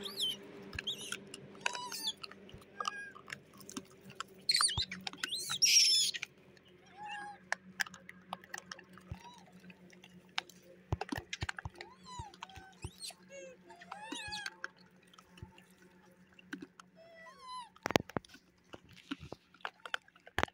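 Scattered short chirping calls and a few sharp clicks, with a louder shrill burst of calls about five seconds in, over a faint steady hum.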